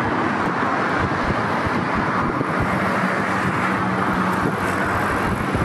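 Steady city road traffic noise, an even rumble with no single vehicle standing out.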